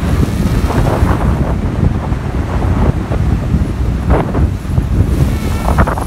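Strong wind buffeting the microphone, over which a DJI Spark quadcopter's propellers buzz as it flies overhead; a wavering higher whine from the propellers comes through near the end as the drone passes close.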